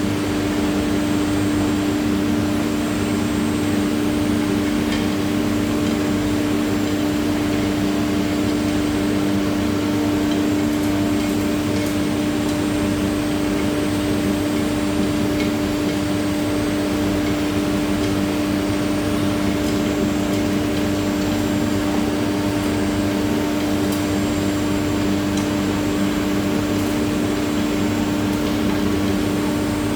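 CNC router spindle running at a constant speed with a steady tone and a noisy hiss of cutting, as it mills a GRC panel.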